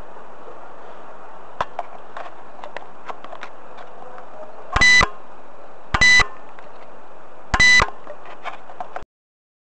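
Carcam X8000 dash cam's built-in beeper sounding three short electronic beeps, about a second apart, over steady microphone hiss. The beeps follow small clicks of fingers handling the unit, and all sound cuts off abruptly near the end as the recording stops.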